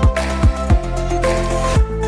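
Electronic background music with a steady kick-drum beat and held synth tones.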